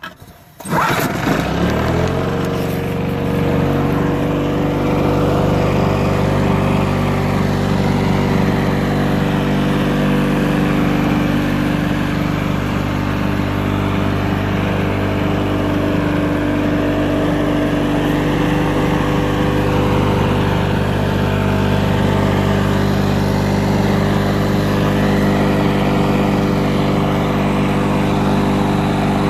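Lawn-Boy Quietflite two-stroke C-series mower engine, a quieter-muffled version of the C engine, starting about a second in, its pitch rising as it comes up to speed, then running steadily.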